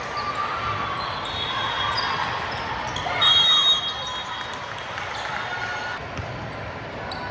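Indoor volleyball match: background voices from spectators and players, and short high sneaker squeaks on the court. About three seconds in comes a loud, short, shrill whistle-like tone lasting about half a second.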